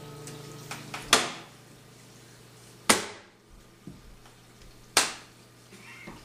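The last acoustic guitar chord dies away, then three sharp hand smacks come about two seconds apart, each with a short room echo.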